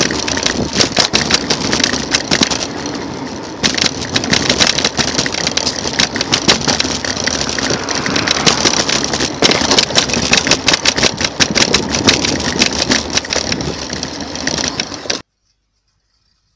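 Home-modified electric micro scooter ridden fast along a paved footpath: its small hard wheels clatter and rattle over the rough concrete slabs and their joints, with a steady high hiss over the top. The noise cuts off suddenly about 15 seconds in.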